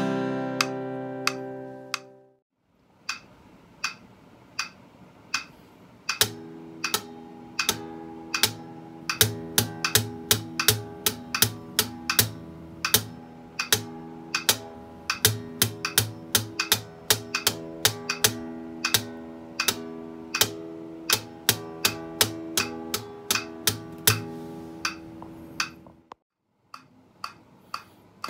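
Steel-string acoustic guitar picked with a thumb pick: a steady rhythm of sharp, clicky plucks on the bass strings under ringing notes. At the start a strummed chord dies away, and near the end there is a short gap before new picking begins.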